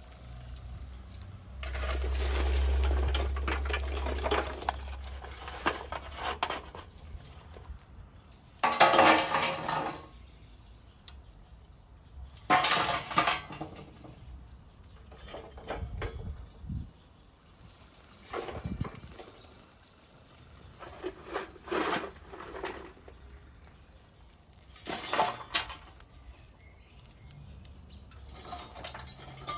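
Intermittent clatter and scraping of dishes and utensils, in short separate bursts, with a low rumble a couple of seconds in.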